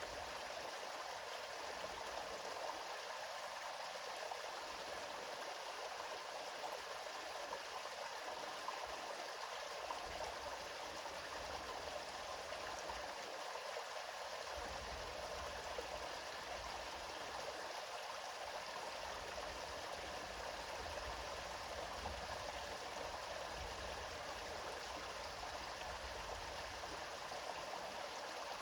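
A river flowing steadily: a continuous, even rush of water with no breaks.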